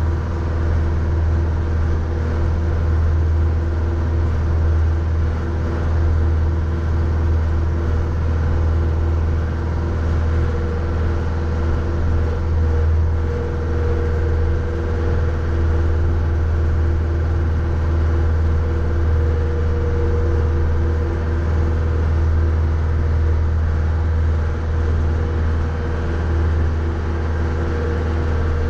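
Mahindra 3550 tractor's 50 hp diesel engine running at a steady speed, a constant low drone with no changes.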